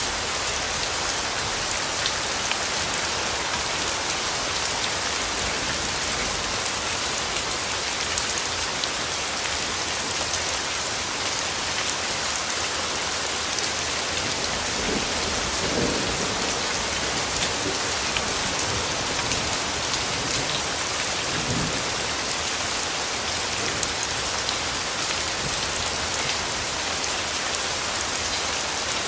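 Steady, dense patter of falling water drops, sounding like rain, with two brief low rumbles about halfway through and again a little later.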